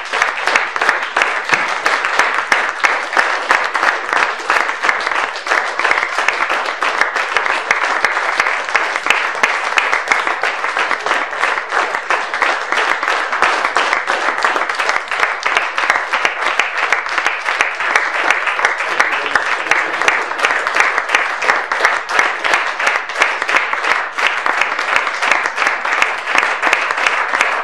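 Audience applauding steadily, the clapping even and unbroken throughout.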